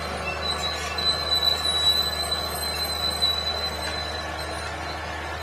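Mining haul truck tipping its raised dump body: rock and gravel slide off with a rough rushing noise, over a steady low engine hum and a thin, high-pitched squeal held throughout.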